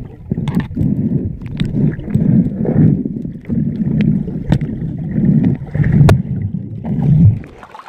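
Muffled underwater rumbling and gurgling of river water moving around the camera as a diver swims near the bottom, coming in uneven surges, with a few sharp clicks and knocks. The rumbling cuts off suddenly near the end.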